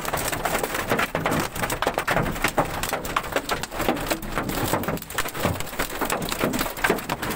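Hailstones pelting a car's roof and hail-shattered windshield, heard from inside the cabin: a dense, irregular rattle of hard impacts that keeps up without a break.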